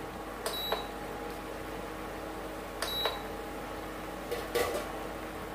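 Touch buttons on a Prestige induction cooktop's control panel beeping twice, about two and a half seconds apart, as the heat is turned down to the lowest setting, over a steady low hum.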